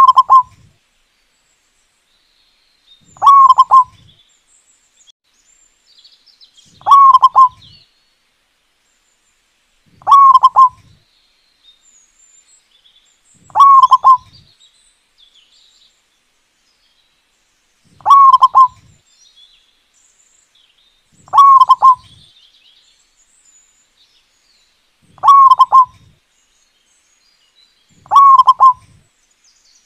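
Zebra dove (perkutut) singing: a short, loud phrase of quick coos, repeated at even spacing about every three and a half seconds, nine times.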